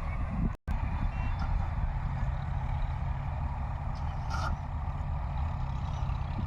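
Claas Crop Tiger 40 combine harvester's engine running steadily with a low rumble, cut off for an instant about half a second in. A brief high tone sounds about four and a half seconds in.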